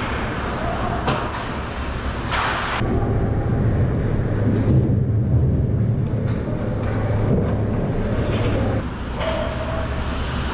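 Ice hockey skates scraping and carving on the rink ice. There is a sharp scrape about two seconds in, a low rumble through the middle, and another scrape near the end.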